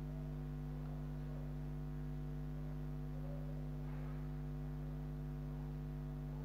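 Steady electrical hum, a set of fixed low tones at an even level, with no speech.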